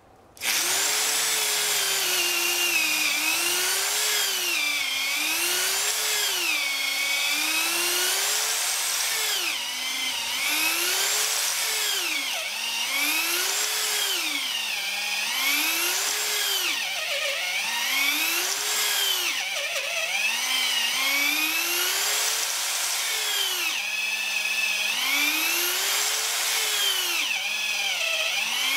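Corded electric drill boring a long bit down into a laminated timber keel. It starts about half a second in, and its motor whine rises and falls in pitch about every two seconds as it speeds up and slows under load.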